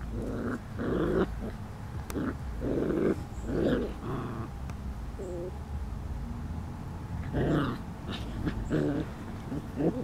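Young doodle puppies growling in play: short rough growls in quick succession, in two runs with a pause in the middle, and a small whine between them.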